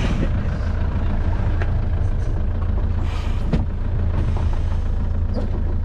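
Boat's engine running at a steady idle, a continuous low hum. A single sharp click about three and a half seconds in.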